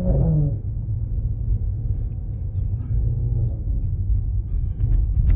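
Low engine and road rumble of a 2020 Mercedes-AMG GT53's turbocharged inline-six, heard inside the cabin while driving. The engine note falls in pitch in the first half second, then settles into a steady rumble, with a sharp click near the end.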